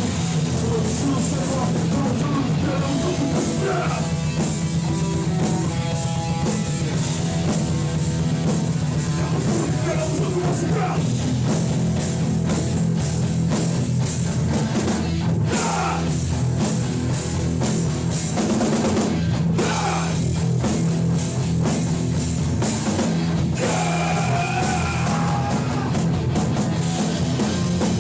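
Hardcore punk band playing live, with distorted guitars, bass and a drum kit, in a steady loud wall of sound.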